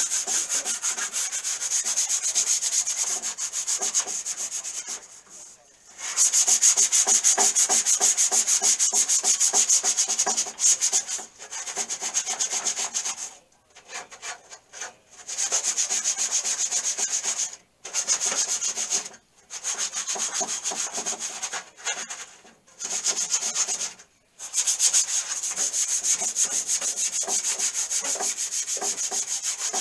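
A sanding sponge rubbed by hand in quick back-and-forth strokes over the smooth painted steel inside a tool box lid, scuffing the paint so new paint will grip. The scrubbing hiss stops briefly several times, with the longest pause about halfway through.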